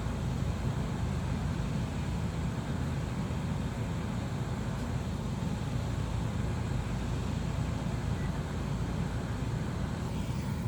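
Steady low rushing noise of a heating tool's fan running while it warms the underside of an iPhone XS to about 150 degrees to soften the screen adhesive.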